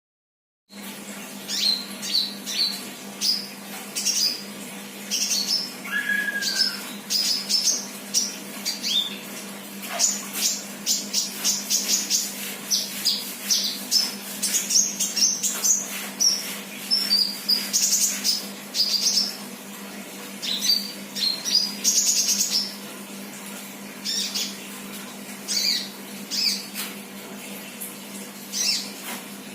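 Sunbird singing: quick runs of high, thin chirps and trills, over a steady low hum.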